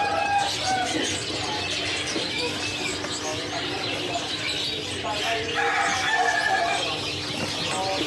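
A dense chorus of many caged birds chirping, whistling and calling at once, over a steady low hum.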